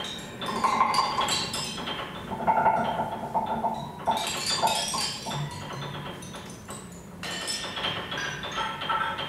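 Free-improvised live music from piano, drum kit and modular synthesizer: clinking, bell-like metallic percussion and short ringing tones with no steady beat.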